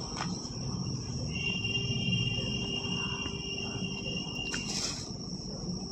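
A steady high-pitched trill, like an insect's, running without a break, with a second, lower whistling tone joining it from about a second in until near the end. A brief rustle of cloth comes near the end.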